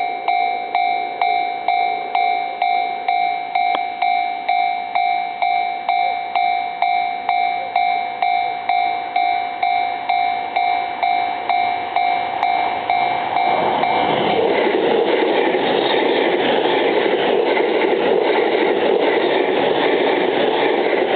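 Level-crossing warning bell ringing about twice a second. About fourteen seconds in, a JR East E231-series electric commuter train begins passing through the crossing, and its steady rush of wheels on rails becomes the loudest sound, largely drowning the bell.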